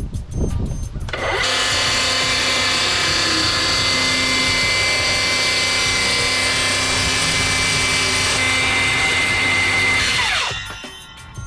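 Electric power tool motor starting up about a second in, running steadily at full speed for about nine seconds, then winding down with a falling pitch as it is switched off. Background music around it.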